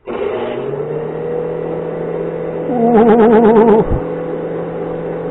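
Braun 4235 juice extractor's motor switched on, spinning up over the first second and then running steadily, now that the sticky spilled liquid that was gumming it up has been washed off. A person's wavering voice is heard briefly over it about three seconds in.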